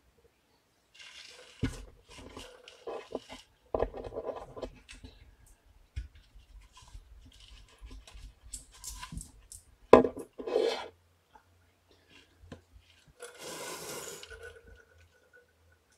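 Rubbing and rustling handling noises, with scattered clicks, a sharp knock about ten seconds in, and a longer scraping noise near the end.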